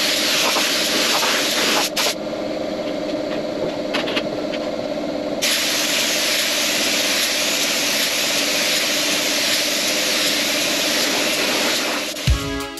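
Gravity-feed paint spray gun hissing steadily on compressed air as red paint is laid on a car roof, with a steady hum underneath. About two seconds in the hiss drops back for a few seconds, then returns at full strength.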